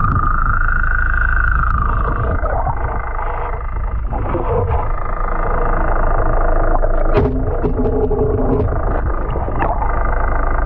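Boat engine heard underwater: a steady low rumble with a whining tone that rises and falls in the first two seconds, and a run of sharp clicks in the second half.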